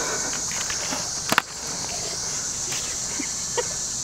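Insects droning steadily in a high, even band, with one sharp knock about a second and a half in.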